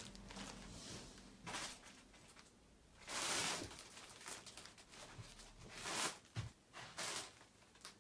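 Faint rustling and handling noises: a few short, soft hisses, the longest and loudest about three seconds in.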